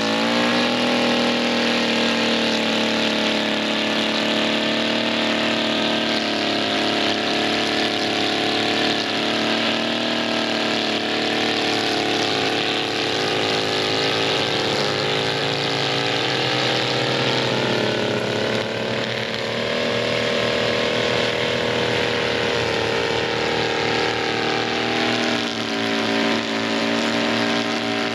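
Echo SRM-266T string trimmer's small two-stroke engine running after a carburetor replacement, its speed wandering up and down, dipping and recovering in the second half.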